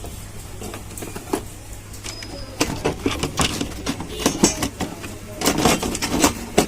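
Irregular small clicks and knocks of hands handling an LED TV's cable connectors and board, coming more often after the first couple of seconds, over a steady low hum.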